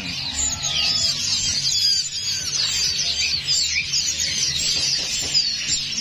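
Many caged songbirds chirping and twittering at once: a dense, unbroken chorus of short, high, quick notes over a low background hum.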